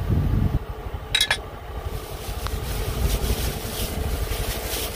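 Bajaj Qute's single-cylinder engine idling with a steady low rumble. A short sharp click comes about a second in, and a plastic bag rustles from about three seconds in.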